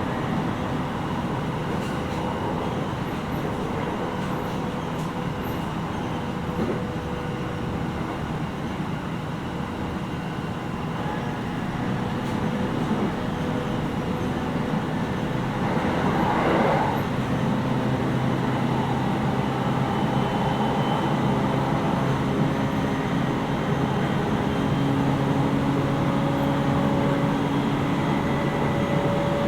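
Interior running noise of a JR 701-series 5500-subseries electric train in motion, heard inside the motor car: steady wheel-on-rail noise with a hum of steady tones underneath. About halfway a brief rushing swell passes, and the running sound stays a little louder after it.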